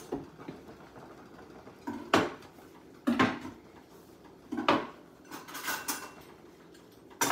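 Dishes and cutlery being handled: a string of separate knocks and clinks, a second or so apart, with short clattering bursts.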